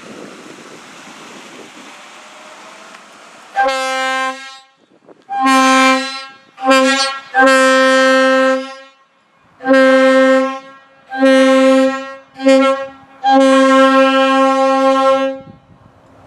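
Railroad locomotive air horn sounded in eight blasts of mixed length, short and long, each on one steady note. Wind noise on the microphone before the first blast.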